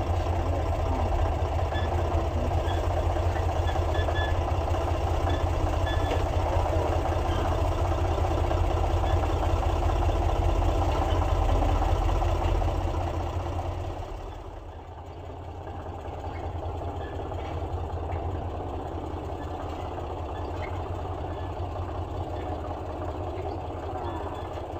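New Holland compact tractor's diesel engine running steadily at low speed as it tows a loaded trailer; about fourteen seconds in the sound drops and becomes more distant.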